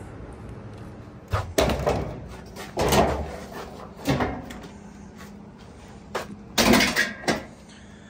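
Sheet-metal front panel of a Maytag Bravos XL dryer being lifted off the cabinet and set down: a series of metal clunks, rattles and scrapes, the loudest knocks near the end.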